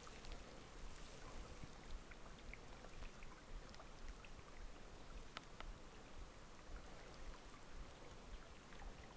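Faint, steady flow of river water, with scattered small ticks and drips.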